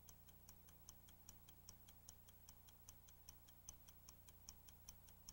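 Faint, even ticking sound effect, about five ticks a second, alternating stronger and weaker like a clock's tick-tock.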